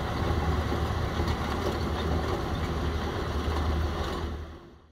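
Large tractor running steadily under load as it works a gravel road with a front-mounted road-maintenance implement, a continuous low engine rumble with gravel noise over it. Fades out near the end.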